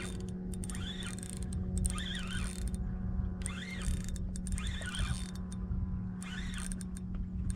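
Spinning reel being cranked hard against a fighting jack, giving a squeak that rises and falls about once a second with each turn of the handle, over a steady low hum.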